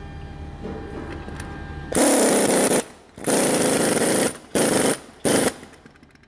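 Impact wrench run in four bursts, the first two about a second long and the last two short, working on the strut and spring compressor.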